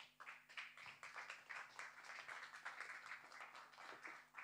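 Faint audience applause, a dense patter of many hands clapping that tapers off near the end.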